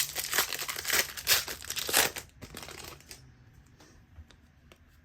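Foil wrapper of a Donruss football card pack being torn open and crumpled, a dense crinkling for about three seconds, then a few faint ticks as it stops.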